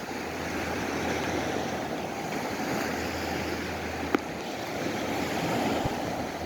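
Storm-force wind blowing hard across the microphone: a steady, heavy rushing, with one sharp click about four seconds in.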